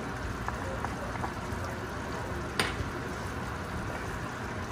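Chicken masala sizzling and bubbling steadily in a frying pan over high heat while a wooden spoon stirs it. There are a few light taps early on and one sharp click about two and a half seconds in.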